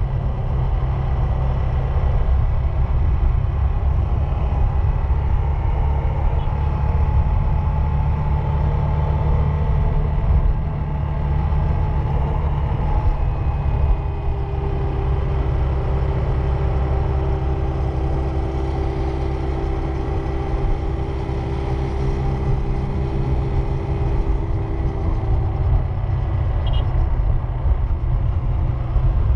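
Car driving: a steady low rumble of engine and road noise, with a faint steady drone coming in about halfway through and fading near the end.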